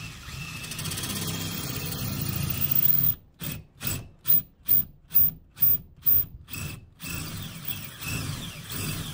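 DeWalt cordless drill running into the soffit mounting plate. It runs steadily for about three seconds, then in about eight short trigger bursts, then steadily again near the end.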